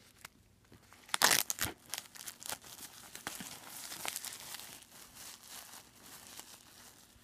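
Clear plastic shrink wrap being pulled off a Blu-ray box set and crumpled in the hand, crinkling and crackling. It is loudest just over a second in, then thins out and fades toward the end.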